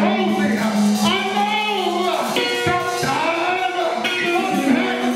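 Church music: sustained instrumental chords, with a voice singing over them in rising and falling phrases.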